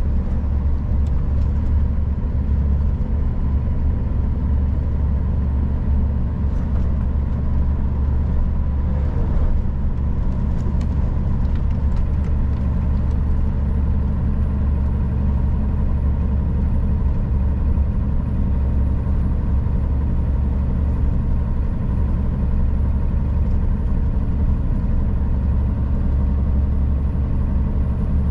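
Scania R440 truck's 13-litre inline-six diesel running steadily while driving, a continuous low drone with no change in pitch.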